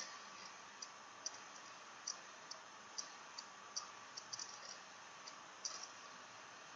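Faint, irregular clicks of a computer mouse, about one or two a second, over a low steady hiss.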